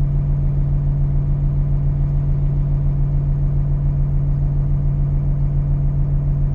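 Heavy construction machine's engine running steadily at constant speed, a strong low hum with an even, rapid pulsing beneath it.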